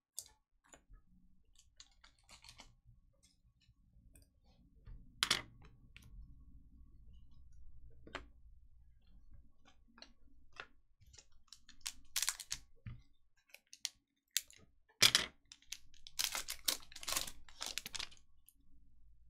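Irregular clicks and crackles of hands at work on a desk, the sharpest about five and fifteen seconds in, with a quick run of them near the end, over a faint low hum.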